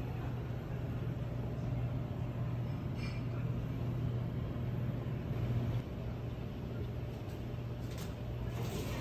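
A steady low mechanical hum under a faint noise haze, with a few short clicks near the end.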